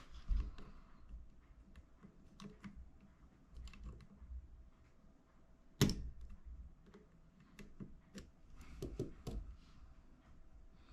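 Light, irregular metallic clicks and taps of tools and small parts on the Monroe L-200 adding machine's gear train, with one sharper clack about six seconds in, as the intermediate gear assembly is worked loose from its shaft.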